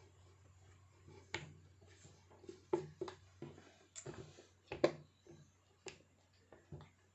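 Cotton blouse fabric handled and smoothed flat by hand on a wooden table: soft rustling with scattered light knocks and taps, over a low steady hum.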